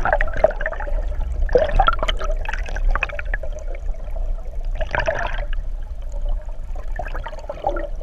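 Water rushing and gurgling around a submerged camera, surging unevenly (strongest near the start, about a second and a half in, and about five seconds in) over a low steady rumble.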